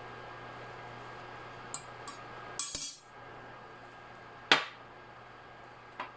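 Metal kitchen tongs clinking and rattling against an enamelled cast-iron pot and being set down: a short metallic clatter about two and a half seconds in, then a single sharp clack with brief ringing midway, over a steady low hum from the induction cooktop.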